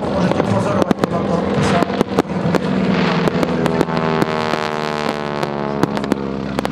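Aircraft-borne and aerial fireworks crackling and banging in rapid sharp reports. In the second half an aerobatic aircraft's engine drones by under them, its pitch shifting slightly as it passes.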